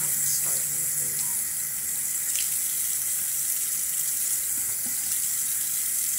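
Bathroom sink faucet running steadily into the basin while a face is washed under it.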